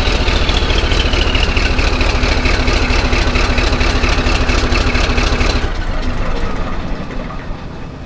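CAT D11 bulldozer's diesel engine running loud through a straight-piped exhaust, rapid even firing pulses under a thin turbo whistle that slides slowly down in pitch. About six seconds in the engine sound drops and the whistle stops, and it then fades away.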